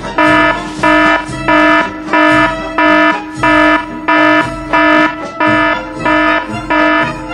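A loud pulsing tone like an alarm: a steady chord of several pitches beeping on and off evenly, about one and a half times a second.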